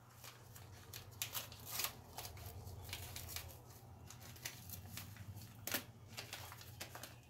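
Yellow padded mailer envelope being torn open and handled, its paper and plastic crinkling and rustling in short irregular bursts, over a low steady hum.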